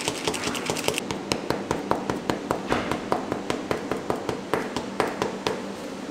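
A quick run of light, sharp taps, about four or five a second, stopping near the end: a bundle of paper tubes filled with red chocolate being tapped against the counter to settle the filling.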